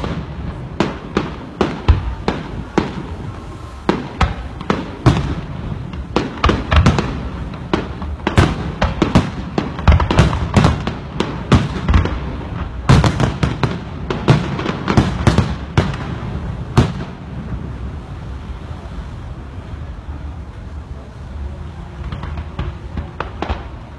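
Aerial fireworks display: shells bursting in a rapid, dense string of bangs and crackles, thinning out to fewer, weaker bangs after about 17 seconds.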